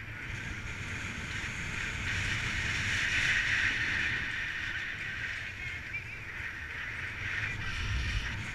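Wind noise on the microphone from a paraglider's flight: a steady rushing hiss over a low rumble, swelling a little about three seconds in.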